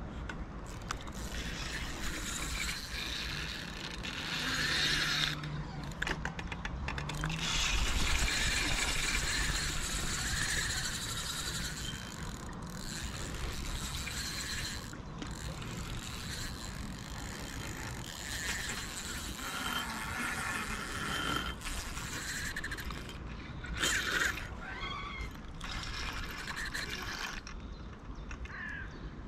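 Spinning reel being cranked with a clicking, ratcheting sound while a hooked fish pulls the rod over. It is wound in spells with several short pauses.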